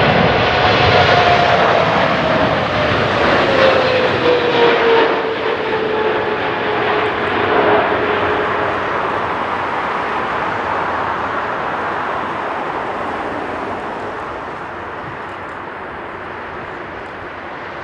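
Boeing 777-300ER's GE90 turbofan engines on a landing approach, passing close by: a high engine whine slides down in pitch over the first several seconds over a steady jet roar. The noise then slowly fades as the airliner lands and rolls away down the runway.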